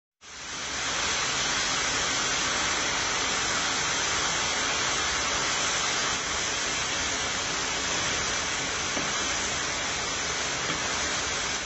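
Sliced pork and asparagus sizzling steadily in a hot pan as they stir-fry, fading in over the first second.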